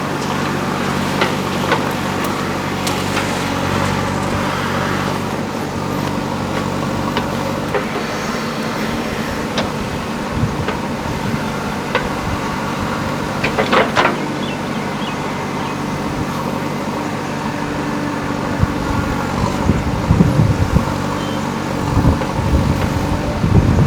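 Diesel engine of a JCB backhoe loader running steadily, with scattered short knocks and clanks over the engine note, several of them near the end.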